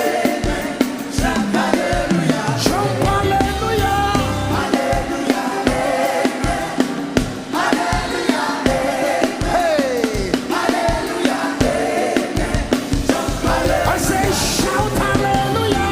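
Live gospel worship music: voices singing over a band.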